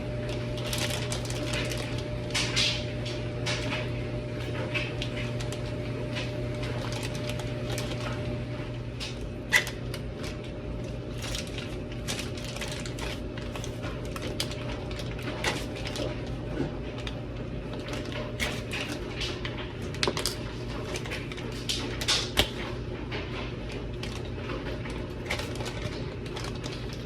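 Irregular small clicks and scrapes of a heated flat-head screwdriver working at a hard plastic clothing security tag, cutting around its center pin, over a steady low hum.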